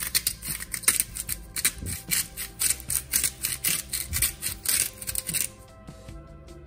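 Pink salt grinder being twisted to grind salt crystals: a fast, irregular run of crunching clicks that stops about five and a half seconds in.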